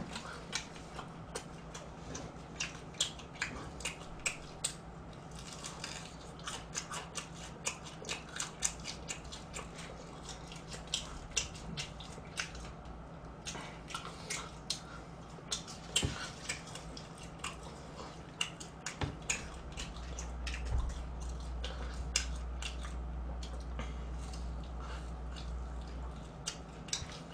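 Eating crispy fried chicken close to the microphone: irregular sharp crackles and crunches of fried skin as the meat is torn by hand and bitten, with chewing. A low steady hum runs underneath, and a low rumble rises for a few seconds about three-quarters of the way through.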